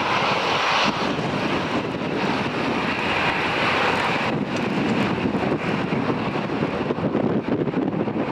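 Gusty wind buffeting the microphone, over the fading engine noise of an airliner that has just passed.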